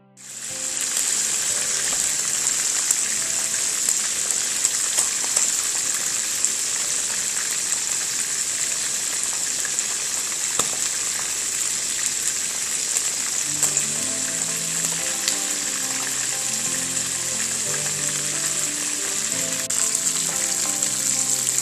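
Bangus (milkfish) pieces shallow-frying in hot oil in a pan: a steady, loud sizzle with scattered pops and crackles.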